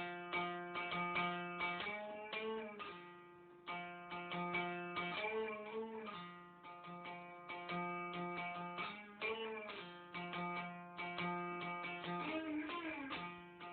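Homemade one-string diddley bow with a 10-inch, 30-gauge sheet-metal ductwork resonator, plucked over and over around one low note, with the pitch sliding up and down a few times.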